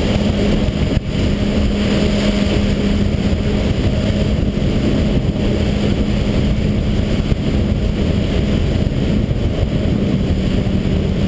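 Personal watercraft (waverunner) engine running steadily at speed, a constant drone, under a heavy rush of wind and water noise.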